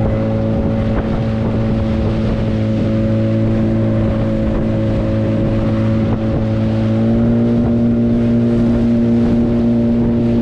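Small motorboat's engine running steadily at cruising speed, with water rushing past the hull and wind on the microphone; the engine note rises a little about seven seconds in.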